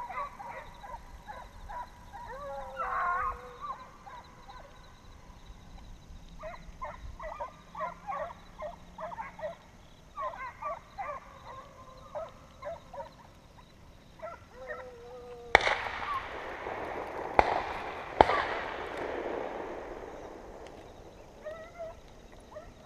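A pack of deer hounds baying on a drive, then three shotgun shots in quick succession, about three seconds from first to last, each ringing out with a long echo that fades away.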